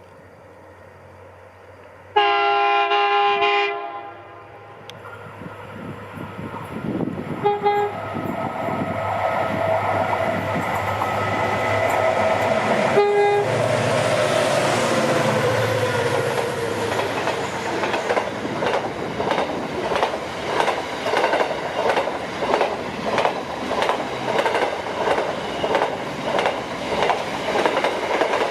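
Freight train's diesel locomotive horn: one long blast of about a second and a half, then two short toots, as the locomotives approach and pass with a falling engine note. The wagons then roll by with a steady rhythmic clickety-clack of wheels over the rail joints.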